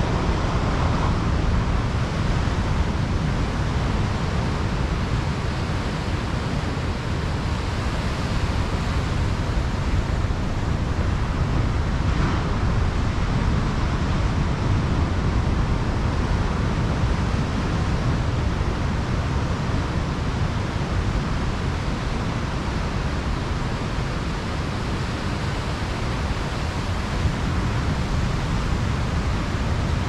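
Ocean surf breaking and washing up a beach: a steady rush of noise with a deep low rumble, swelling brighter about a second in and again about twelve seconds in as waves crash.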